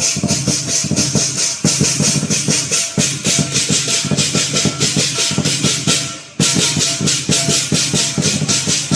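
Lion dance percussion: a big drum beaten in a fast, driving rhythm under clashing cymbals. It breaks off for an instant about six seconds in, then starts again.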